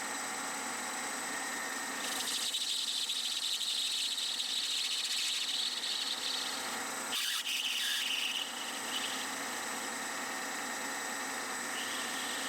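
Small metal lathe running steadily, with a scraping hiss from the tool cutting brass bush stock that starts about two seconds in, breaks off briefly just after seven seconds, and comes back faintly near the end.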